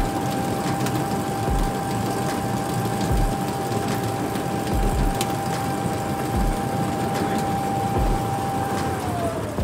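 OVS-25 grain cleaning machine running on a test run after its intake-auger bearings and drive-rod springs were replaced: a steady mechanical clatter with a whine, and a low thud about every second and a half. Near the end the whine falls in pitch as the machine runs down.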